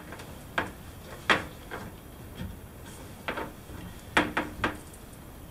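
Scattered sharp clicks and knocks, about half a dozen, some in quick pairs, as a plastic handheld shower head and its hose are handled and set into the wall bracket.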